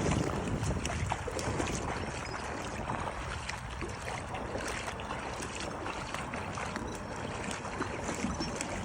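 Wind and choppy water: a steady rush of noise with many small irregular splashes and slaps of water against the dock.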